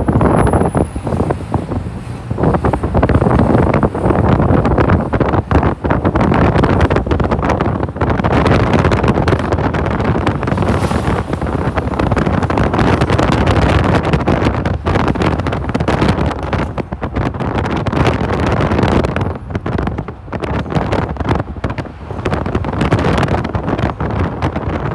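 Wind buffeting the microphone: a loud, gusting rumble that rises and falls throughout.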